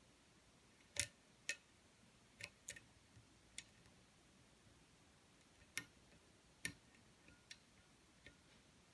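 Lock pick working the pins of a pin-tumbler challenge lock under tension: faint, sharp clicks, about nine of them at uneven gaps, as the pick lifts pins and they set or drop.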